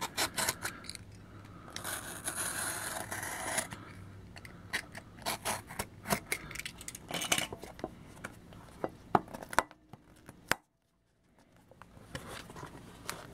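A glued, well-packed shipping package being worked open by hand: scraping and tearing at tape and cardboard, with many sharp clicks and rustles. The sound drops out briefly about eleven seconds in.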